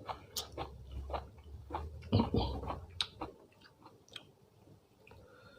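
A person chewing food close to the microphone, with a busy run of sharp smacking bites for about three seconds, then quieter chewing.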